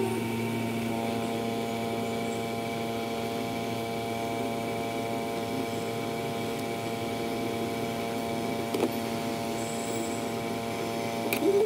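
Hot-air rework station blowing over a phone motherboard, its blower fan running with a steady hum made of several even tones. Faint clicks come twice near the end.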